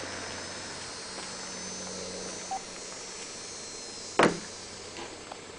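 A vehicle running slowly as it pulls up to park, its low hum dying away about two and a half seconds in, then a single sharp knock a little after four seconds.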